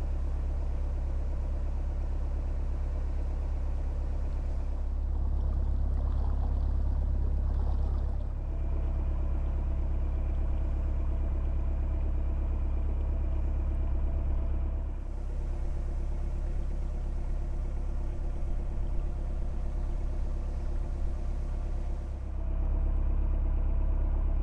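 Narrowboat's inboard diesel engine running steadily while cruising: a deep, even drone whose sound shifts abruptly a few times.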